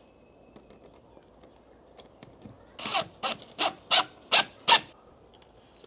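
A few faint clicks, then, nearly three seconds in, a quick run of about six scraping strokes against wood, roughly two and a half a second, like a rasp or file worked back and forth.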